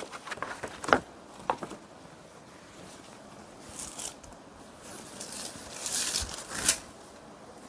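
Rustling and swishing of a lightweight brasso-print saree as the fabric is unfolded, lifted and folded by hand, in several short bursts.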